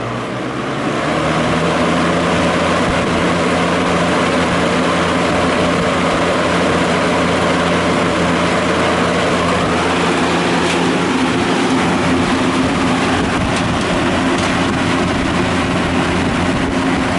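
Manning-Bowman metal box fan running on high speed: motor hum under the steady rush of the blades moving air, building up over the first couple of seconds and then holding steady.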